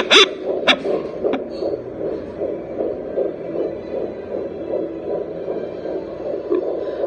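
Fetal heartbeat at 13 weeks heard through a JPD-100E home fetal doppler's speaker: a fast, even pulsing over a steady hum. A few sharp clicks stand out in the first second and a half.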